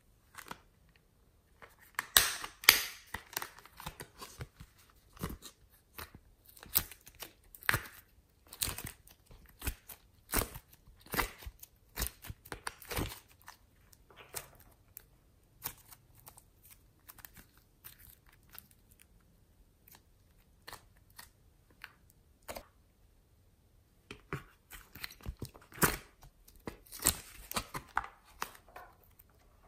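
Soft modelling clay squeezed, crumpled and pulled apart by hand, giving an irregular run of short crackles and clicks that come thickest about two seconds in and again near the end.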